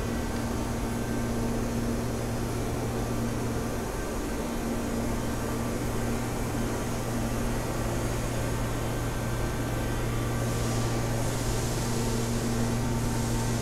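Steady machine-shop hum: a low electrical drone with a steady mid-pitched tone over a haze of fan-like noise, with a brighter hiss coming in about ten seconds in and fading near the end.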